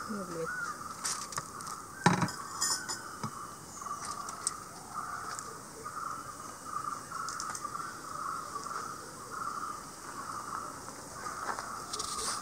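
Insects chirping steadily in a pulsing rhythm, with scattered light clinks of plates and a serving spoon and one sharp knock about two seconds in.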